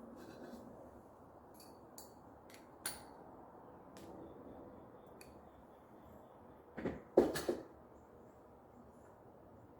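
Light metallic clicks and clinks of tools and bicycle parts being handled, with a louder cluster of knocks about seven seconds in.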